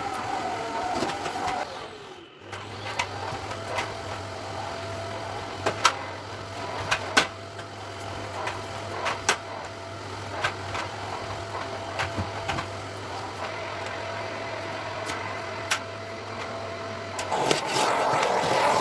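A steady low machine hum with a faint steady tone above it, starting about two seconds in and stopping near the end, with scattered light clicks and knocks over it.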